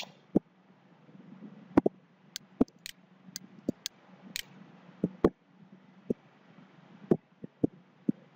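Computer mouse clicking: sharp, irregular clicks, some in quick pairs, over a low steady hum.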